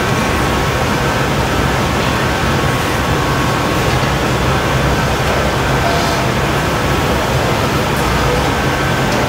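Steady, loud roar of a glassblowing hot shop's gas burners and ventilation, unbroken throughout.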